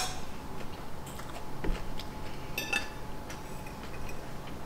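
Forks clicking and scraping against plates now and then while people eat quietly, over a faint steady hum.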